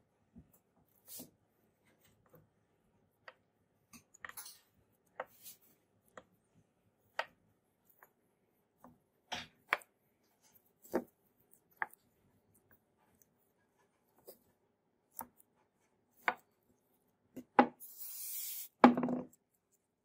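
Bearing-steel straight-razor blade being honed by hand on 4000-grit sandpaper over a wooden block: scattered short scrapes and taps of the steel on the paper, roughly one a second. Near the end comes a longer hissing scrape, then a louder knock.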